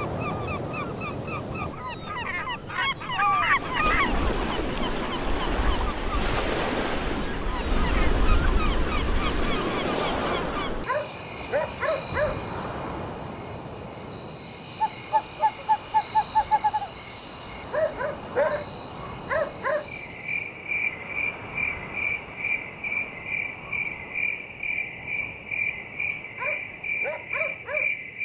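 A sequence of nature sounds: birdsong at the start, then a loud rushing noise, then a steady shrill insect drone with short runs of frog-like croaks, and finally a night insect chirping regularly about twice a second.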